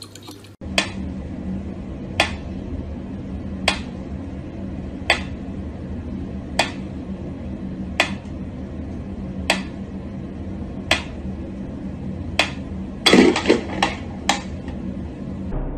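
Mechanical pyramid metronome ticking slowly and evenly, about one sharp tick every second and a half. Near the end comes a short burst of louder knocks and clatter.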